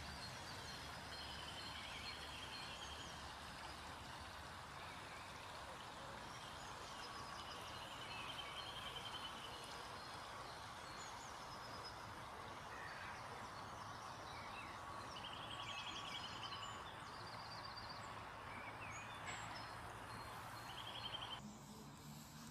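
Shallow river rippling over stones, a steady rush of water, with small birds singing over it: a short trilling phrase repeated several times, plus higher chirps. The water sound cuts off abruptly near the end.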